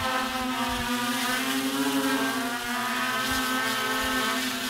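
Hexacopter's six electric motors and propellers running in flight while carrying a heavy payload: a steady multi-tone whine that rises slightly about two seconds in and settles again.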